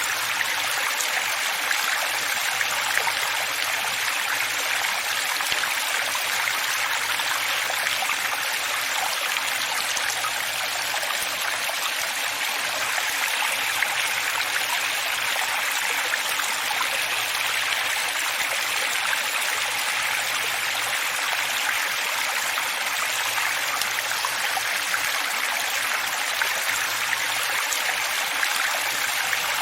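Running water flowing steadily: an even, unbroken rushing hiss with little deep rumble and no single splashes standing out.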